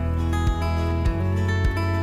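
Background music: guitar over a steady beat of low thumps, a little under two a second.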